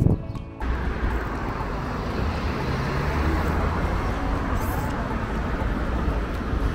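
Background music cuts off about half a second in, giving way to steady city street noise with road traffic and a low rumble.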